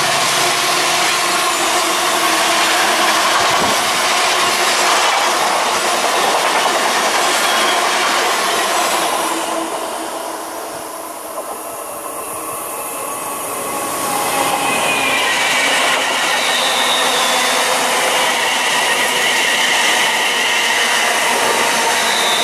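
Flat wagons of a long freight train running past at speed, the noise fading away about ten seconds in. Then a Class 350 electric multiple unit approaches and passes with a high whine, growing loud again.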